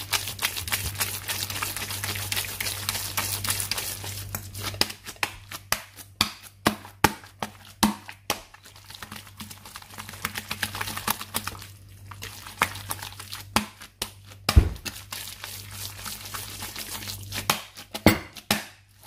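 Thick ga'at porridge being rocked and turned in a ceramic bowl to shape it into a dome: irregular soft knocks, scrapes and crinkly handling noises, with a heavier thump about two-thirds of the way through, over a faint low hum.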